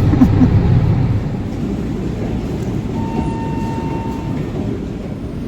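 Steady low rumble of a moving vehicle, with a single steady beep lasting about a second and a half, starting about three seconds in.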